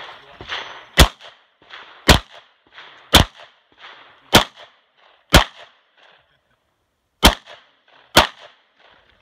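Semi-automatic pistol fired seven times in single shots, roughly one a second, with a longer pause of about two seconds before the last two.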